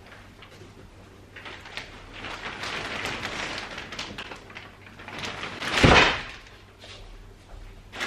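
Clear plastic wrapping rustling and crinkling as a mattress is pulled out of it. Just before six seconds in there is a loud thump as the mattress comes down onto the bed frame.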